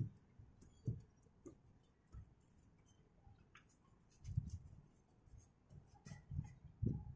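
Paintbrush stroking and dabbing wet waterproof coating onto gauze laid over a corrugated zinc roof sheet: faint bristle scratches with a few soft low thumps, more of them in the second half.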